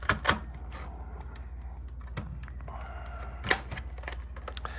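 Sharp mechanical clicks from a Sony Video 8 camcorder's buttons and tape mechanism as it is put into playback: two clicks at the start and a loud one about three and a half seconds in, over a steady low hum.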